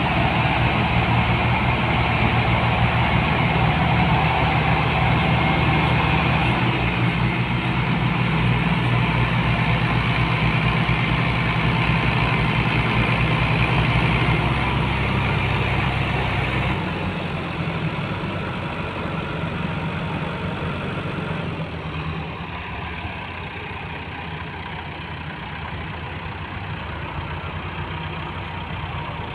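Diesel tractor engines, a red Massey Ferguson and an orange Fiat, running under load as they tow a heavily loaded sugarcane trolley. The engine sound drops abruptly and grows quieter a little over halfway through.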